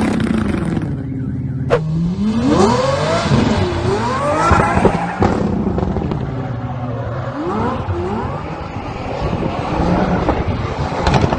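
Mercedes V12 engine of a swapped BMW 1 Series revving hard and dropping back in repeated sweeps as the car drifts in circles.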